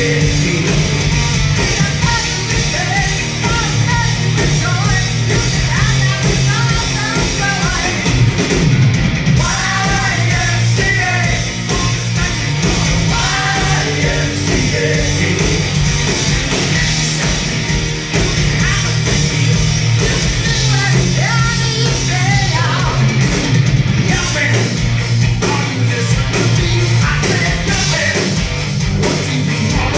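A live heavy metal band playing loudly, with distorted electric guitars, a steady drum beat, bass and several voices singing together, heard from within the crowd.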